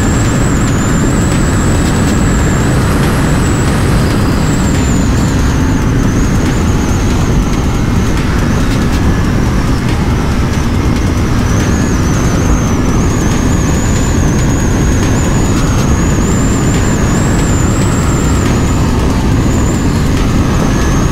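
Heavy wind rush on the microphone over the engine of a KTM RC 390, a single-cylinder sport bike cruising at a steady speed. The sound is loud and even throughout, with no gear changes or revving standing out.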